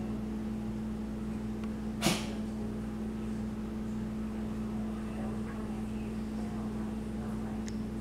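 Steady low hum with a few held tones, with a single short, sharp noise about two seconds in.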